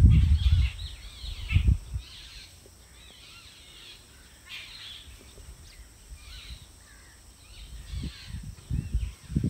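Small birds chirping and twittering in the background. Low rumbling bursts on the microphone at the start, briefly about a second and a half in, and again near the end.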